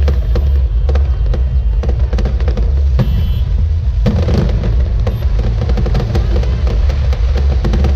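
Aerial firework shells bursting in quick succession, with many sharp cracks and pops and a strong bang about three seconds in, over loud music with a heavy bass.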